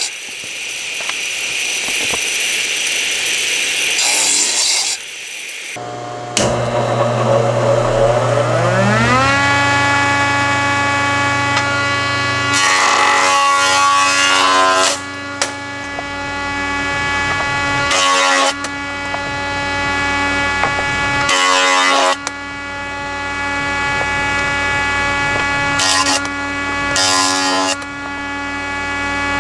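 Stationary woodworking machine working rough oak boards. One machine sound ends about six seconds in. Then a motor starts and its pitch rises for a few seconds to a steady run, and louder cutting noise comes with each of several passes.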